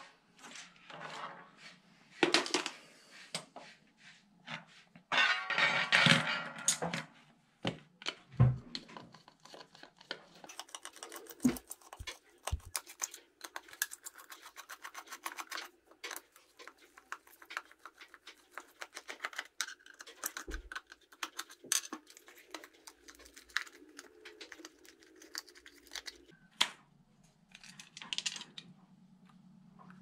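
Hands handling small metal and plastic parts on a table: scattered clicks, knocks and rustles. Then a long stretch of fast, scratchy clicking while a CB antenna's magnetic base is twisted and worked apart.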